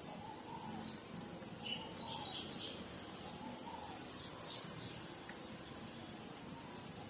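Soft, repeated squeaks from newborn puppies nursing, about one a second, with clusters of faint higher chirps about two seconds and four seconds in.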